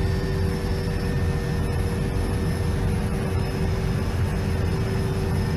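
Helicopter cabin noise: steady low rumble of the rotor and turbine with a constant whine over it.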